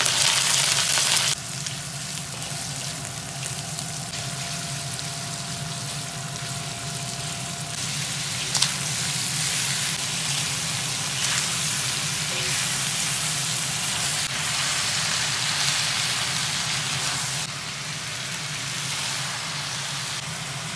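Diced meat and then vegetables frying in hot oil in a wok: a loud sizzle for about the first second, then a steady frying sizzle while the food is stir-fried, with a few sharp clicks along the way.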